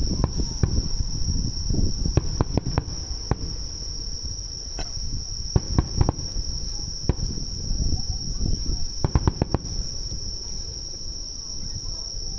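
Insects chirring in one steady high-pitched tone throughout. Distant fireworks sound underneath as a low rumble of booms and scattered sharp cracks, with a quick run of cracks about nine seconds in.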